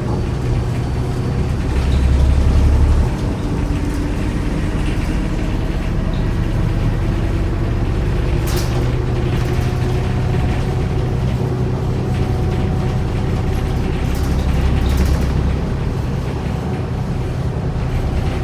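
New Flyer D40LF diesel bus heard from inside while under way: a steady engine and drivetrain drone with a faint whine that slowly rises in pitch, and short rattles about eight and a half and fifteen seconds in. The bus has a transmission that the rider calls bad.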